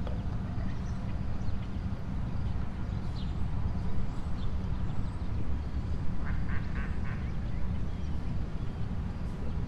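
Ducks quacking on open water, a few short calls clustered about six to seven seconds in, over a steady low rumble.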